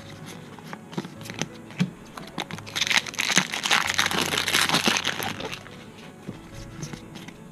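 Foil Pokémon card booster pack wrappers crinkling and tearing as packs are opened and handled, with a louder stretch of crinkling about three seconds in.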